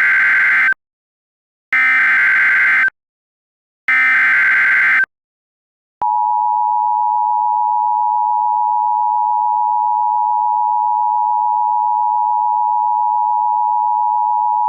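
Emergency Alert System SAME header: three bursts of digital data tones, about a second each with a second's gap between them, which encode the alert. About six seconds in, the EAS two-tone attention signal starts, a steady pair of tones near 853 and 960 Hz, marking the start of an emergency warning.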